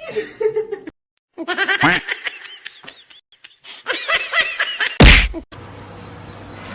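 High-pitched laughter in quick repeated bursts, in two runs, then a single loud smack about five seconds in, followed by a steady low hum.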